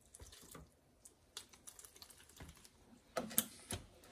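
Irregular light clicks and taps of kitchen containers being handled as vinegar is added to homemade jerk seasoning, with a couple of louder knocks about three seconds in.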